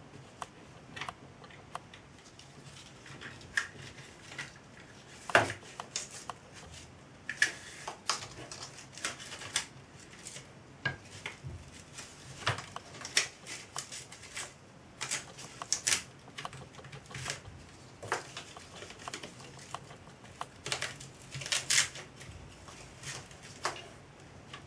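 Hands handling and fitting parts on a model steam traction engine: irregular clicks and light metallic taps as small parts are knocked and set in place.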